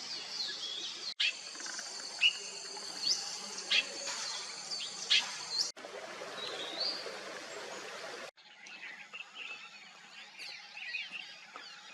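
Wild birds calling: short, sharp chirps and calls over a steady high hiss of outdoor ambience, with the background changing abruptly at a few cuts.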